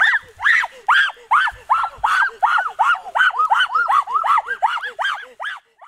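An animal calling over and over: short high calls, each rising and falling in pitch, about four a second, getting a little quicker toward the end before stopping.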